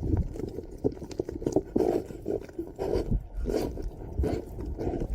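An animal vocalizing in a series of short growl-like sounds, one or two a second.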